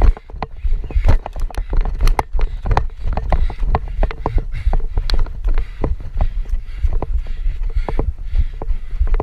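Running footsteps pounding a leaf-covered dirt trail, about three a second and uneven, over a heavy low rumble and thumps from a handheld camera jostled with each stride.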